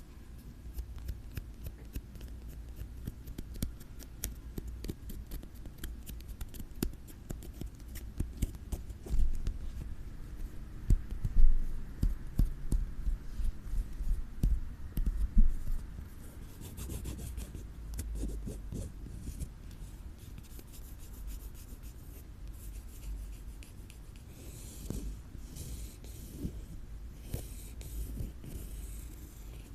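Close-miked ASMR scratching on an object: dense, rapid small clicks and scrapes, loudest in the middle, turning to a softer, hissier scraping in the second half.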